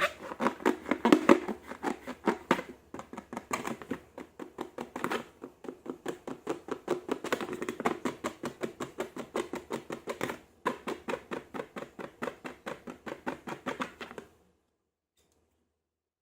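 Slime being squished and worked by hand, giving a fast run of sticky, wet clicks and pops several times a second, which stops abruptly about two seconds before the end.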